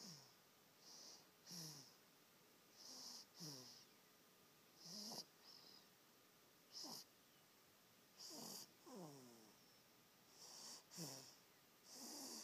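A baby snoring: faint, wheezy breaths every one to two seconds, some in quick pairs, each with a short squeaky whistle that falls in pitch over a breathy hiss.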